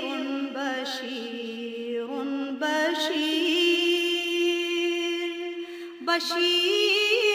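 A single voice chanting a slow song in long held notes with wavering, ornamented turns, with a brief break about six seconds in.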